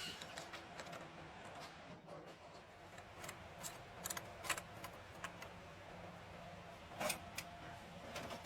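Scattered light clicks and taps, with a louder pair about seven seconds in.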